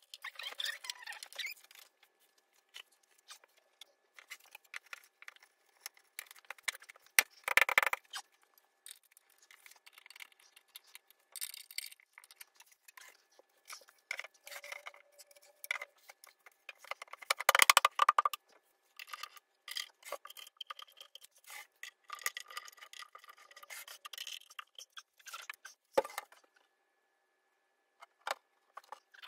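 Sped-up, pitch-raised sounds of flat-pack furniture assembly: parts and tools being handled in quick scattered rubs, scrapes and clicks, with two louder spells of scraping and a sharp click near the end.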